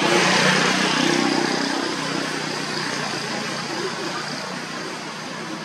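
A motor vehicle's engine running, loudest about a second in and slowly fading.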